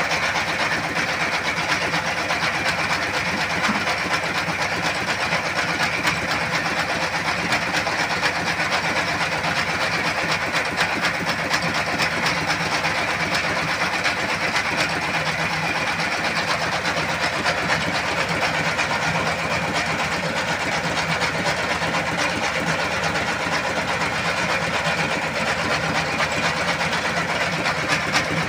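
Single-cylinder S1115 diesel engine running steadily with an even, fast clatter that does not change. The engine still smokes heavily and burns oil after new piston rings, connecting rod, bearings, piston pin and injector nozzle.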